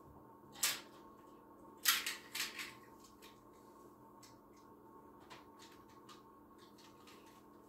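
Die-cast toy cars being handled and picked up off a wooden table: a few sharp clicks and taps in the first three seconds, then faint scattered ticks over a steady low room hum.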